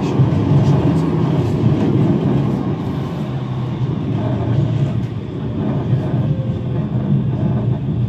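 Manchester Metrolink tram running on rails, heard from inside the passenger cabin: a steady low rumble of wheels and running gear with a few light clicks. It grows a little quieter in the second half as the tram slows for a stop.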